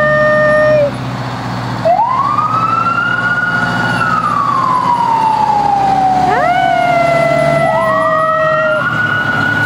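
Fire engine siren wailing. It winds up about two seconds in, falls away slowly over several seconds, then winds up again near the end. A steady, higher tone sounds briefly at the start and again in the middle.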